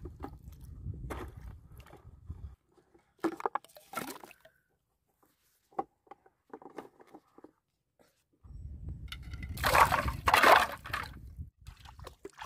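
Feet splashing through shallow muddy water, loudest about ten seconds in, with scattered knocks and clicks of plastic bottles and a plastic tub being handled, and a low rumble at the start and again near the end.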